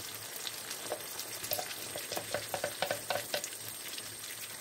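Tomato sauce with sliced wurstel sizzling in a frying pan while a wooden spoon stirs it, with a run of short clicks through the middle.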